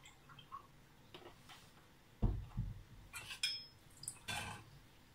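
Milk being poured from a carton into a glass jug and then into a stainless steel pot, with a couple of soft knocks a little past two seconds in and light clinks of the glass jug against the metal pot.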